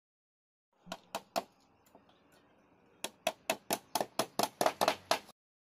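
Hammer blows on centering formwork: three strikes about a second in, then a quick run of about ten strikes, roughly five a second, getting louder.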